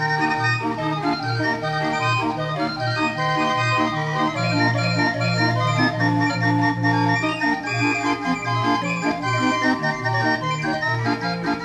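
Barrel organ (a Binche 'viole') playing a dance tune: a melody of pipe notes over held bass notes that change about once a second.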